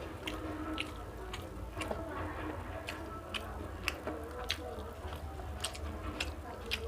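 Close-up eating sounds: a person chewing a mouthful of food with wet mouth clicks and smacks, about two or three a second and unevenly spaced, over a steady low hum.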